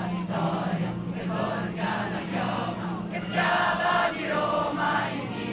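A crowd singing and chanting together in chorus, loudest about three and a half seconds in.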